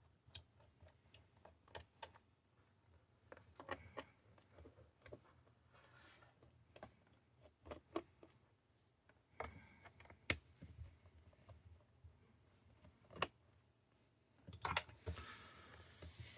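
Faint, scattered clicks and light taps of a screwdriver and small screws against a laptop's plastic case as the screws are taken out, with a short rustling scrape near the end.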